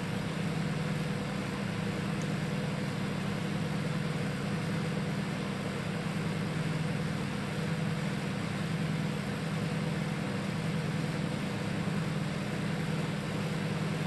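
Dawlance microwave oven running on full high power with its cover off: a steady low electrical hum that holds even throughout.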